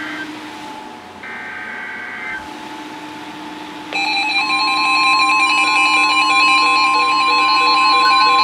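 NOAA Weather Radio Emergency Alert System signal: the end of one SAME header data burst and then one full burst, short warbling screeches, and from about four seconds in the steady 1050 Hz warning alarm tone, layered with the receivers' own alert tones and pulsing beeps.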